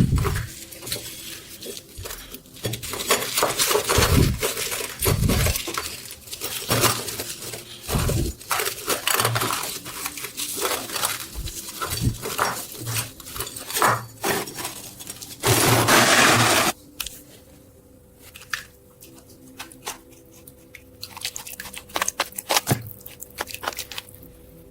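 Irregular clinks, knocks and scrapes of metal parts being handled and worked by hand. About sixteen seconds in comes a loud hiss of about a second, after which only a faint steady hum is left.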